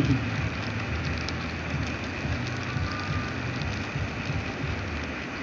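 HO-scale model freight train rolling along the track: a steady rumble and rattle of the wheels on the rails, with the hum of the locomotive's motor.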